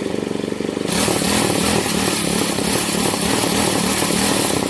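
Pocket bike's small engine running as it warms up. About a second in it gets louder and harsher, its pitch wavering up and down as it is revved.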